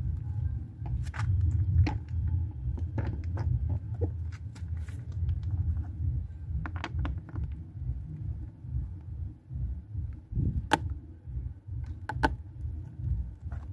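Plastic air-filter box cover of a Honda Dream 110 being fitted and pressed into place by hand: scattered plastic clicks and knocks, with two sharper snaps near the end, over a steady low rumble.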